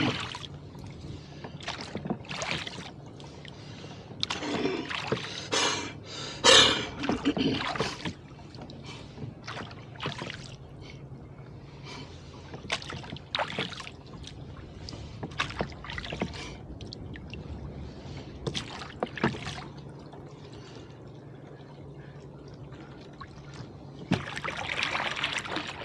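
Rowboat being rowed in toward the shore: irregular knocks of the oars in their oarlocks and splashes of the blades. A brief louder burst of sound comes about six seconds in, and a rush of water near the end.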